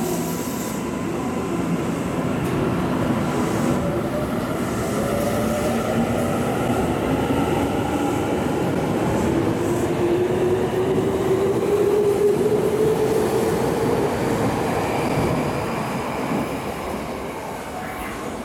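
Electric commuter train pulling out of the station. The whine of its inverter and traction motors rises steadily in pitch as it gathers speed, over the rumble of wheels on rail. The sound fades near the end as the train leaves.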